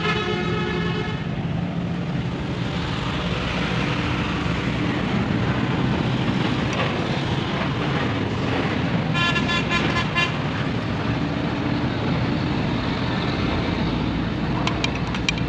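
Steady road traffic noise with vehicle horns tooting: one horn at the start and another about nine seconds in. A short run of clicks comes near the end.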